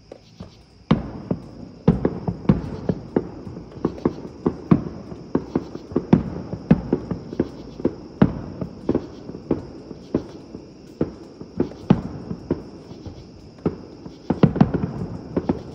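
Aerial fireworks shells bursting in quick succession, a barrage of sharp booms and cracks that starts about a second in, several a second and irregularly spaced.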